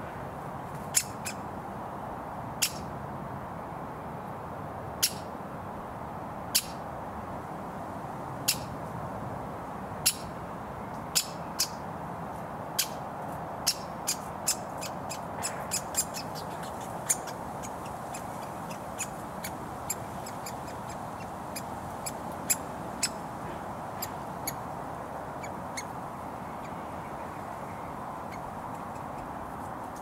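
Woodpecker fledgling calling for food with short, sharp, loud calls, irregularly spaced and coming fastest about halfway through. Steady road traffic noise lies under the calls.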